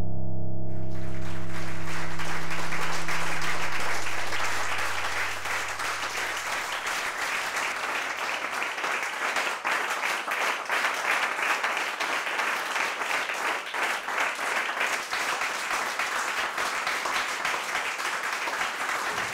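Theatre audience applauding, a dense steady clapping that breaks out about a second in. A held musical chord with a low drone fades out under it over the first few seconds.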